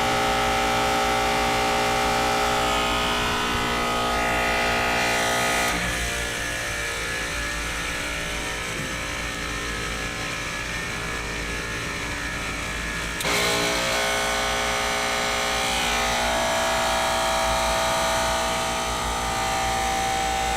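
AAON rooftop HVAC unit's compressor running with a steady hum of several tones. The hum drops away suddenly about six seconds in and cuts back in just as suddenly about seven seconds later, as the compressor's unloader cycles. The owner says this cycling is why the compressor sounds like that.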